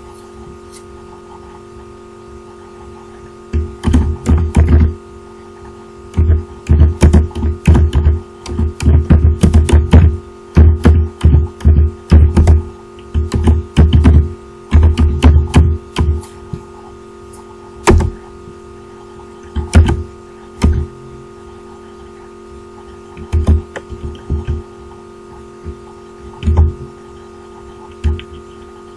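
Typing on a computer keyboard: quick runs of keystrokes through the first half, then single keystrokes every second or two, over a steady hum.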